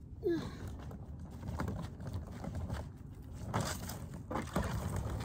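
Footsteps crunching on a gravel-and-grass yard while a wheeled suitcase rolls behind with a low rumble, with a few louder crunches scattered through. A short falling voice sound comes just after the start.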